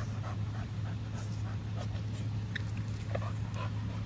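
A pit bull panting with its mouth open, with a couple of short whimpers partway through, over a steady low hum.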